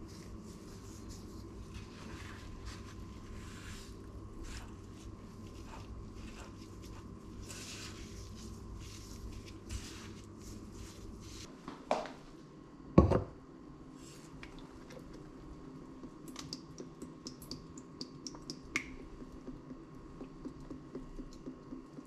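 Gloved hands squishing and patting raw chicken in egg and breading in a bowl, a run of soft wet clicks. About halfway through, a stainless steel pot is set down on an induction hob with two sharp metal clanks, the loudest sounds, followed by scattered light ticks and taps.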